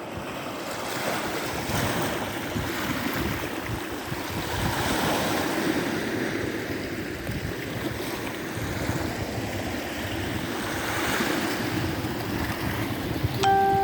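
Sea waves washing onto the beach, surging and easing every few seconds, with wind buffeting the microphone. A short pitched tone sounds near the end.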